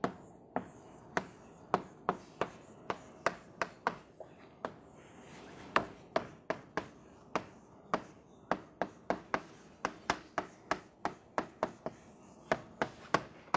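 Chalk writing on a blackboard: a run of sharp, irregular taps and short scratches as the chalk strikes and drags across the board, a few each second.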